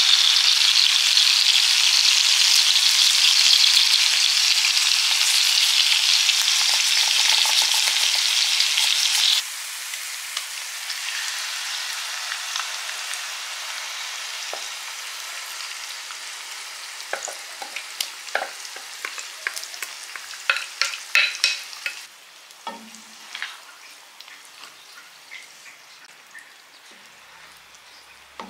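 Chopped onions sizzling in hot oil in an enamel pan, a loud, steady frying hiss that drops abruptly about nine seconds in and stays quieter. Later comes a run of clicks and knocks from a wooden spoon stirring a thick tomato-pepper purée in the pan.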